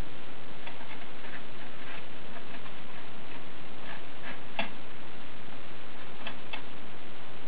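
Ratchet wrench clicking in short irregular runs as it turns the nut of a threaded-rod press, drawing a trailing arm bushing into place, over a steady hiss. The loudest click comes about four and a half seconds in.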